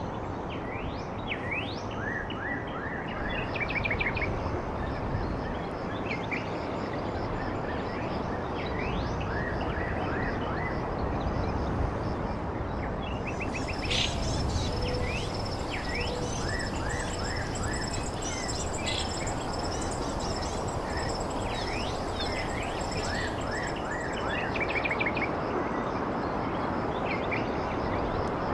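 Several birds chirping and calling in short rising chirps and quick trills, over a steady background of outdoor noise. About halfway through, a steady high-pitched whine joins in.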